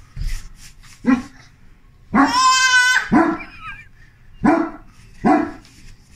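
A dog barking in short separate barks, about four in all, with one long high-pitched cry held for about a second, a little after two seconds in.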